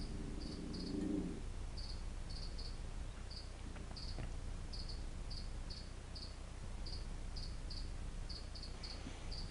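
A cricket chirping: short, high chirps repeating about twice a second, often in uneven pairs.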